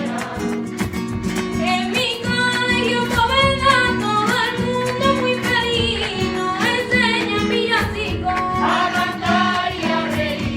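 Voices singing a villancico, a Spanish Christmas carol, over instrumental accompaniment.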